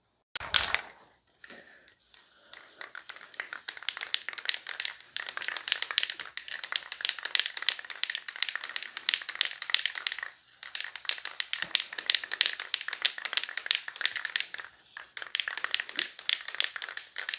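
Aerosol can of disc brake quiet spraying onto the backs of brake pads: a short burst at first, then a long, crackly hiss with two brief breaks.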